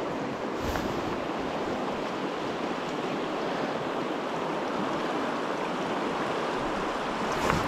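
Fast, pushy river current rushing over stones and around the wading angler: a steady water rush, briefly louder near the end.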